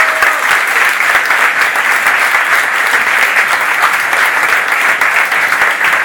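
Crowd of spectators applauding, a steady dense clapping that keeps up without a break.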